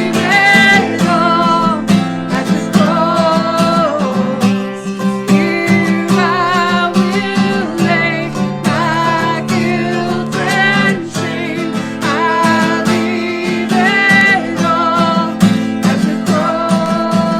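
Worship song: strummed acoustic guitar with a voice singing the melody.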